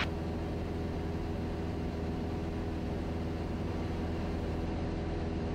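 Cessna 172's piston engine and propeller running steadily in flight, heard inside the cabin as an even, unchanging drone.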